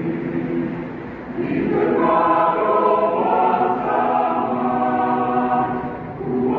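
Youth choir singing. The voices are softer about a second in and swell louder from a second and a half, with a brief dip near the end.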